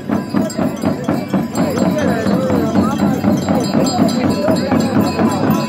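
Jhankri shamans' dhyangro frame drums beaten in a fast steady rhythm, about four to five strokes a second, with the jingling of the shamans' bells.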